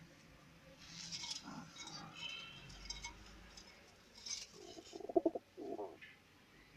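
American fantail pigeons in a loft: short rustling wing flaps about a second in and again past four seconds, then a pigeon's low, pulsing coo in two parts about five seconds in.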